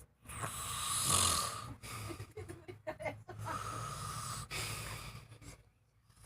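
A person snoring: two long snores, each about one and a half to two seconds, with a short, broken sound between them.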